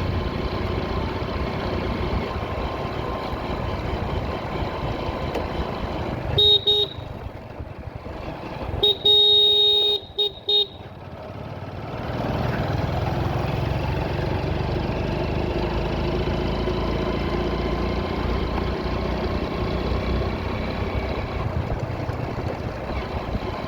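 Steady engine and road noise of a ride through traffic, broken by a vehicle horn: two short honks about six seconds in, then a long blast and two quick toots a few seconds later. The running noise dips while the horns sound and picks up again soon after.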